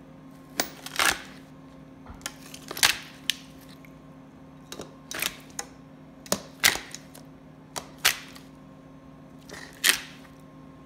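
Long-handled loppers cutting through raw chicken pieces and bone: a run of sharp crunching snaps, about ten of them at uneven intervals.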